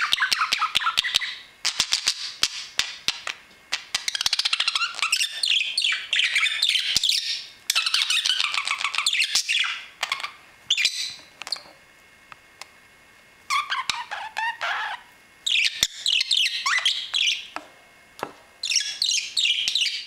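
Caged budgerigar and peach-faced lovebird chattering: fast, busy chirps and squeaks mixed with sharp clicks, coming in stretches with short pauses.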